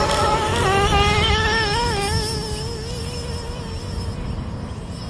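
Traxxas Slayer's 3.3 two-stroke nitro engine running at high revs, its pitch wavering up and down with the throttle as the truck races away, slowly fading.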